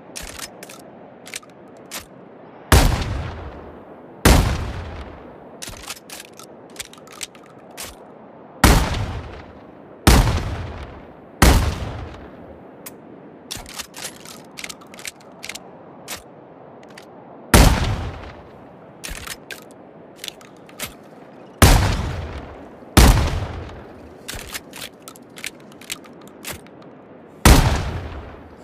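Sawed-off shotgun sound effect: nine heavy shots at irregular intervals, each with a long fading tail, with short sharp clicks between them.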